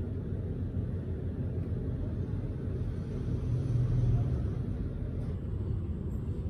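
Steady low rumble that swells briefly about three and a half seconds in.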